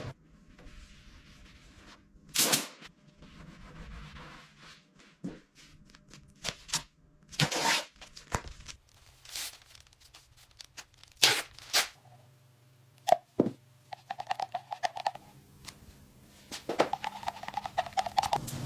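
Workshop handling noises: scattered knocks and clicks, a few short rasping sounds, and two brief buzzing sounds, each about a second long, near the end.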